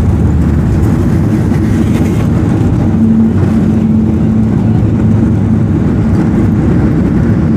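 Cabin noise of a Boeing 737-800 during its landing rollout, heard from a window seat: the loud, steady roar of its CFM56 engines and the airflow as the jet decelerates on the runway with its spoilers raised. A steady hum joins about three seconds in.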